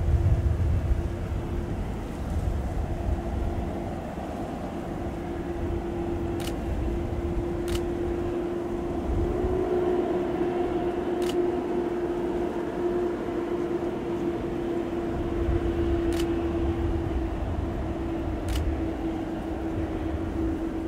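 Boeing 747-400's four jet engines at taxi power: a steady whine over a low rumble as the airliner rolls slowly along the ground.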